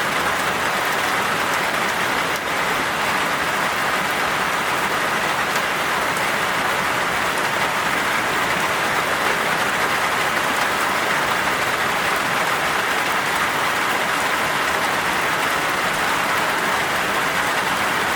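Heavy rain pouring down steadily, a dense even patter of drops.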